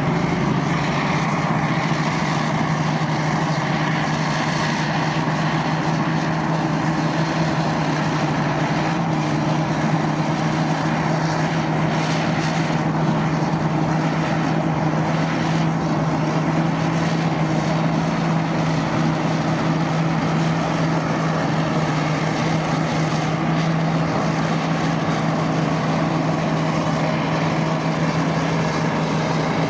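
Caterpillar D8K crawler tractors' diesel engines running steadily under load as they pull 463G hydraulic scrapers stripping topsoil, a constant low drone.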